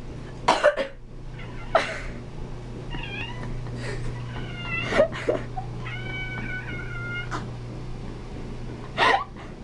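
Domestic cat meowing and yowling repeatedly in protest after someone coughs: short complaining calls, then one long held yowl lasting over a second, mixed with several short sharp noises.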